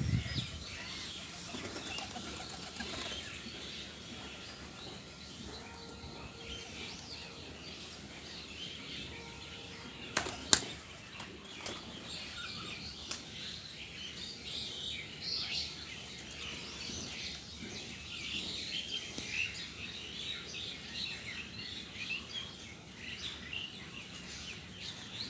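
Pigeons' wings flapping, with a sharp loud clap about ten seconds in, over a continuous chatter of many small birds chirping.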